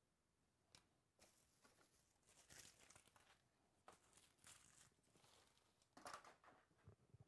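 Faint tearing and crinkling of plastic trading-card packaging being opened, in irregular rustles that come and go, loudest about two and a half and six seconds in.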